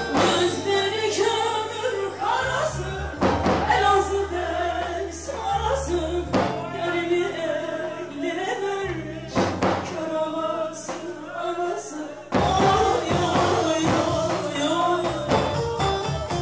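Live Turkish folk song: a woman singing through a microphone over amplified bağlama and electronic keyboard, with long held bass notes and a steady percussion beat.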